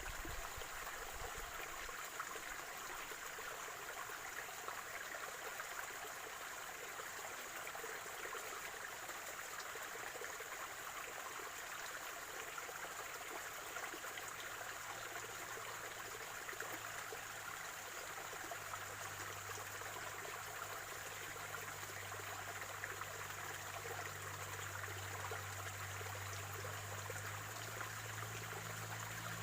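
Small spring-fed stream trickling and gurgling steadily. A low hum comes in about halfway through and grows a little stronger near the end.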